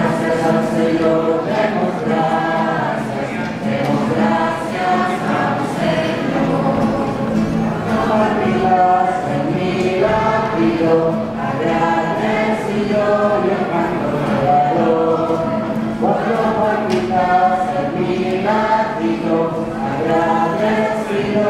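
Church choir singing with organ accompaniment, held low notes sustained underneath the voices.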